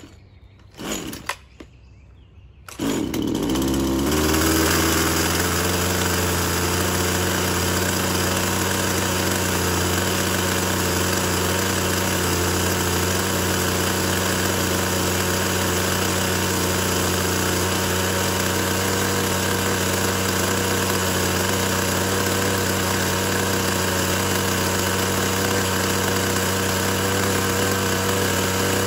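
Husqvarna 129L string trimmer's small two-stroke engine being started: after a couple of seconds of quieter starting sounds it catches about three seconds in, its pitch wavers briefly, then it settles into a steady idle.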